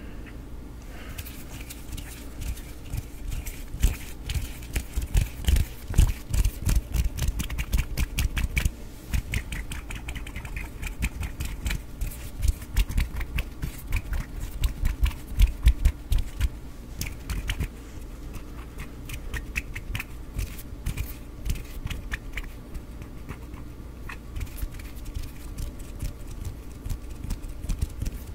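ASMR hand sounds close to the microphone: a dense run of rapid crackly finger clicks and rubbing from plucking and smoothing gestures, with soft low thumps mixed in, heaviest between about four and sixteen seconds in.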